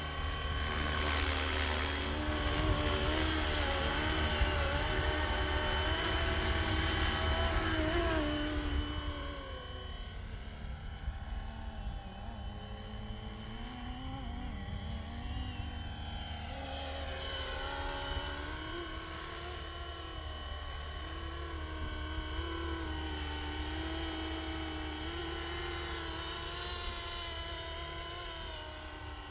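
Flying RC helicopter: the motor and two-bladed main rotor whine and whirr with a wavering pitch. Loud for the first eight seconds or so while it hovers close, then quieter as it flies farther off.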